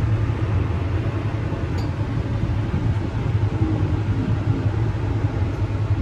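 Steady low hum and rumble of a passenger lift car running between floors, with its cabin fan going.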